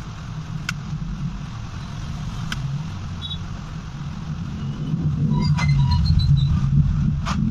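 A steady low rumble that gets louder in the second half, with a few sharp clicks and some faint short high beeps around the middle.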